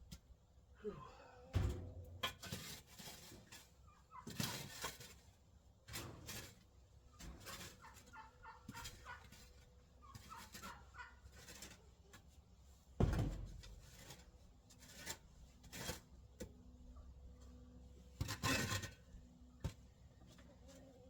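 Chickens calling in short runs of quick repeated notes, with a shovel digging and scraping through packed pen litter in scattered strikes, the loudest about thirteen seconds in.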